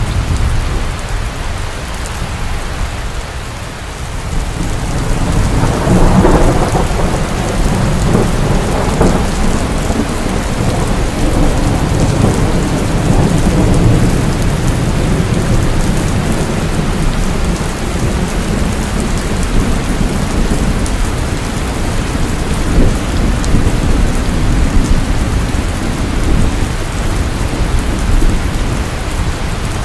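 Heavy rain pouring steadily, with a low rumble of thunder that swells about five seconds in and keeps rolling beneath the rain.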